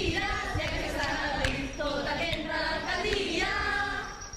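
A group of voices singing together in chorus, mostly women's voices, the singing dropping away near the end.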